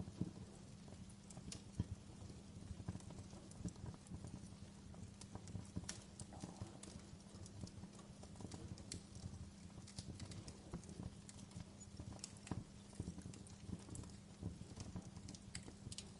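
Wood fire burning in a fireplace, crackling: irregular sharp pops and snaps over the steady low rumble of the flames.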